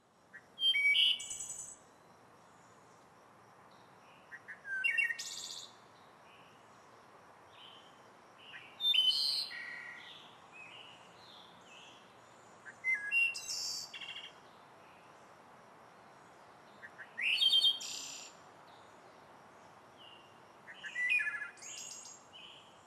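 A songbird singing a short, varied chirping song phrase six times, about every four seconds, over a faint steady hiss.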